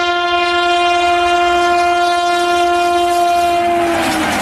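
An Indian Railways electric locomotive's horn sounds one long steady blast. Near the end its pitch drops as the locomotive passes close by, and the rushing clatter of the passing train takes over.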